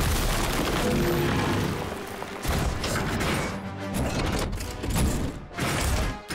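Cartoon action sound effects over background music: crashing and rumbling as rocks fall, then mechanical sounds as gun turrets swing into position, with several sudden hits.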